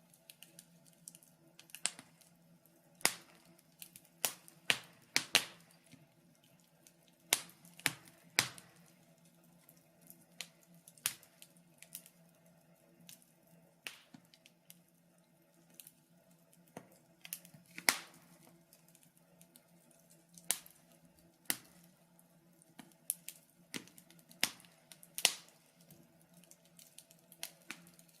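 Wood fire burning in a fire pit, crackling with irregular sharp pops and snaps, sometimes one or two a second and sometimes clustered, with a few louder pops among them.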